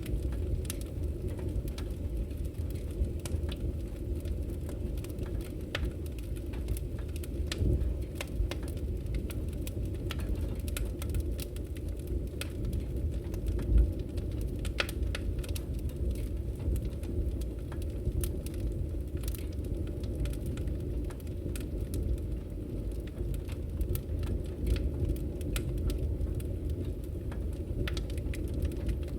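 Open wood fire crackling: scattered sharp pops and snaps over a steady low rumble of the flames, with one louder pop about fourteen seconds in.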